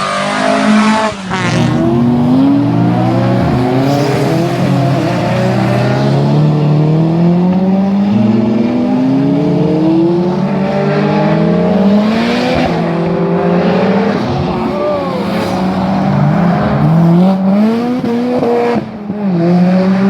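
Rally car engine at hard throttle, its pitch climbing repeatedly and dropping back at each gear change, with a short lift in loudness about a second in and again near the end.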